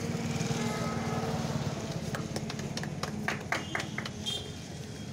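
A small group of people clapping: scattered, irregular hand claps begin about two seconds in and die away near the end, over a steady low hum.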